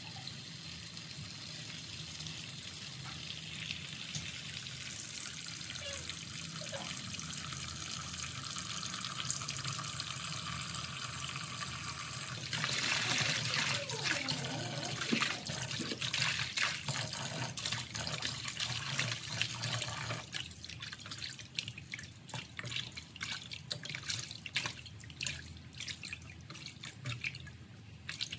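Tap water running into a plastic bowl of leafy greens in a sink, with hands swishing and splashing the greens in the water. Partway through it gets louder and rougher, and in the last third the steady rush gives way to irregular splashes and drips.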